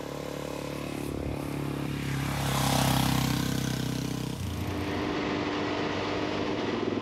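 Suzuki DR-Z400 trail bikes' single-cylinder four-stroke engines riding past on a dirt road, one passing close and loudest about three seconds in. The note changes suddenly about halfway through, and a steady engine cruising note follows, heard from on board the bike.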